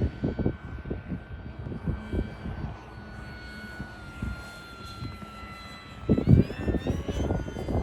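Electric motor and Master Airscrew 11x7 propeller of an FMS Maule RC plane in flight: a steady whine that sags slightly in pitch, then climbs about six seconds in. Gusts of wind buffet the microphone, loudest near the same moment.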